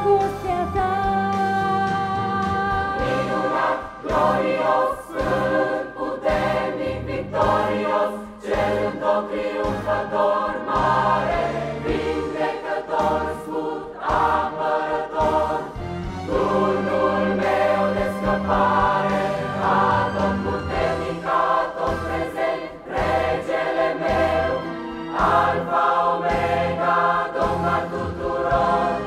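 Mixed choir of women's and men's voices singing a worship hymn in sustained, layered chords, with steady low bass notes beneath.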